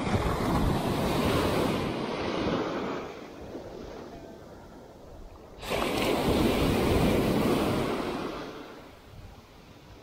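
Sea surf: two waves breaking and washing in, the second starting suddenly about six seconds in and fading away, with wind on the microphone.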